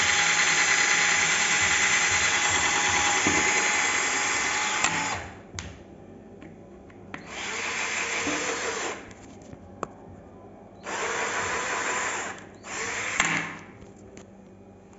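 Smartbuy 12 V cordless drill running a 2 mm wood bit through a wooden batten with a steady whine, boring the hole easily. It runs for about five seconds and stops, then runs twice more for under two seconds each, with a brief blip near the end.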